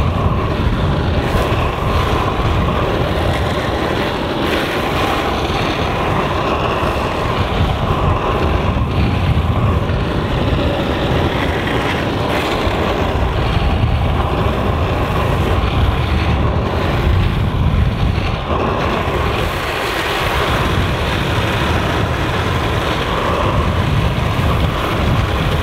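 Urethane skateboard wheels rolling fast over asphalt, a steady rumbling hiss, mixed with wind buffeting the microphone at speed.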